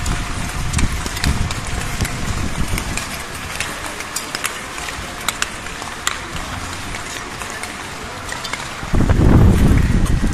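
Speed-skate blades scraping and cutting the ice as a pack of skaters strokes past, with scattered sharp scrapes and ticks. About nine seconds in, a sudden loud low rumble of wind on the microphone takes over.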